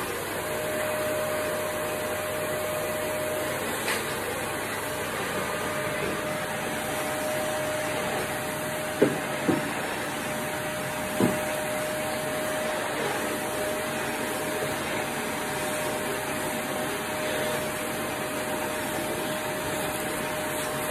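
Vacuum cleaner running steadily, a hiss of moving air with a thin steady whine. Three short knocks about nine to eleven seconds in.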